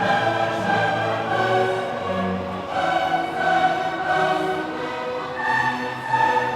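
Classical background music: orchestra with choir-like voices holding long notes that change every second or so.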